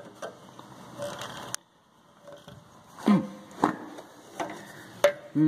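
Pliers gripping and twisting a stuck plastic oil-fill cap on a small Briggs & Stratton engine: a few sharp clicks and a short scraping rasp about a second in.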